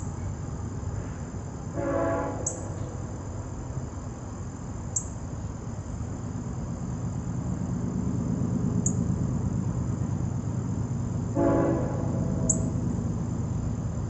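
Northern cardinal giving sharp, very high chip notes about every three seconds over a steady insect drone. A brief low honk sounds twice, with a low rumble underneath.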